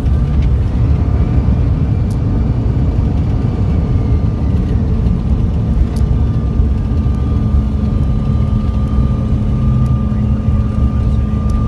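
Bombardier CRJ700 cabin noise, with the rear-mounted General Electric CF34 turbofans running steadily: a heavy rumble under a steady high whine.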